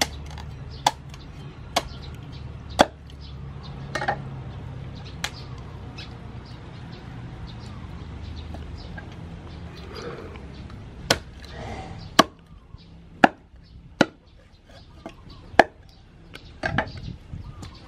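Meat cleaver chopping raw chicken on a wooden chopping board: single sharp chops about a second apart, a pause of several seconds about a third of the way in, then another run of chops.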